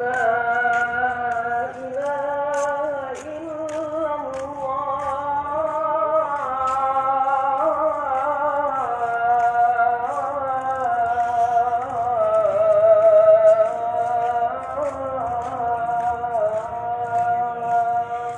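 A lone man's voice singing long, wavering, ornamented held notes in one continuous melodic phrase.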